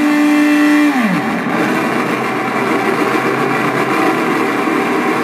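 Southwest Technical Products Ambience Synthesizer sounding through a PA: a held electronic tone drops sharply in pitch about a second in, then gives way to a dense, rough, engine-like drone.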